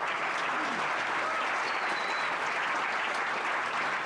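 Audience in a shooting finals hall applauding steadily after two 10.6 shots are announced.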